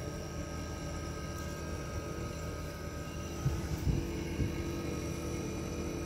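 Refrigerator compressor running with a steady hum, drawing in air through its cut pipe. A few light knocks come between about three and a half and four and a half seconds in.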